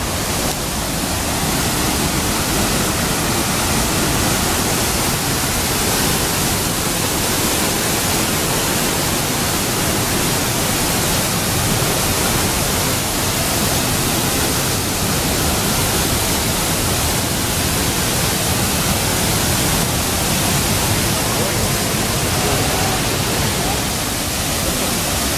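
Mountain stream water rushing steadily, loud and close.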